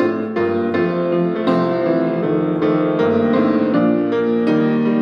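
Grand piano playing an instrumental passage between sung lines: chords and single notes struck about twice a second.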